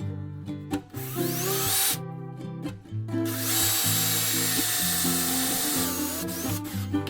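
Power drill running in several bursts, the longest about three seconds, with a brief rising whine as it spins up, over background music.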